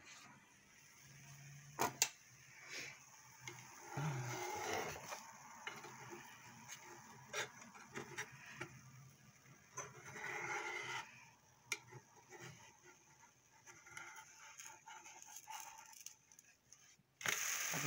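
Mostly quiet kitchen handling sounds with scattered small clicks and knocks; near the end, pancake batter frying in a hot pan starts sizzling loudly, coming in abruptly.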